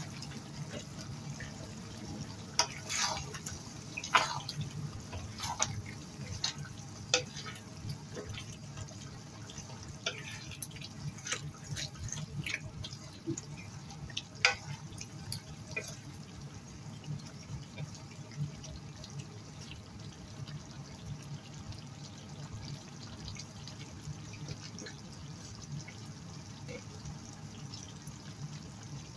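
Chicken afritada simmering in a pan: the thick tomato sauce bubbles with irregular small pops and plops over a steady low background hum.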